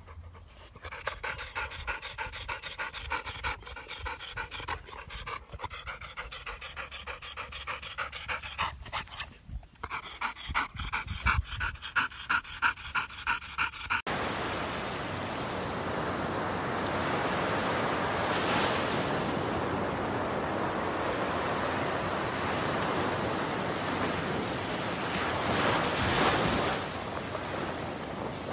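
A Labrador retriever panting in quick, rhythmic breaths that grow heavier. About halfway through, this gives way to waves breaking on a beach: a steady wash of surf that swells twice.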